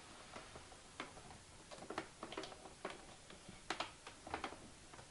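A series of irregular clicks and knocks as a Fakir drip coffee maker is handled and set down on a kitchen countertop, its plastic body and glass carafe knocking lightly; the loudest knocks come a little past halfway.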